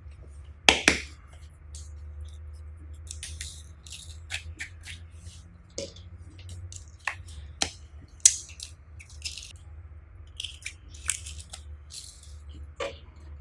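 Slime being squished and kneaded by hand: irregular wet, sticky clicks and pops, with two sharper snaps near the start and about eight seconds in, over a steady low hum.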